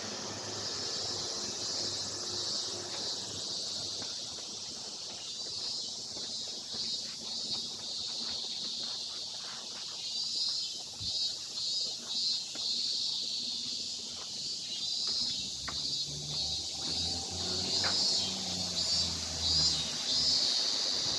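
A chorus of summer cicadas buzzing steadily in a high, pulsing drone, with a low rumble building in the last few seconds.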